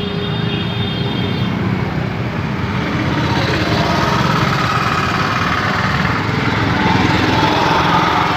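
Steady mechanical noise of a running engine, with no clear starts or stops.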